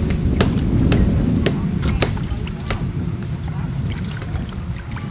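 Low, rough rumble under a series of sharp clicks about every half second, from a hand handling food on a steel plate.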